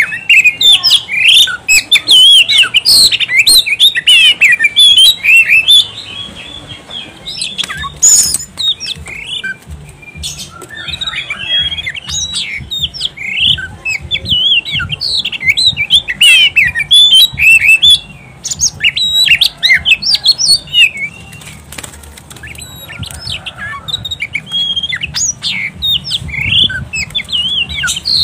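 Oriental magpie-robin (kacer) singing a loud, rapid, varied song of chirps, whistles and sliding notes, in long energetic runs that ease off twice for a few seconds.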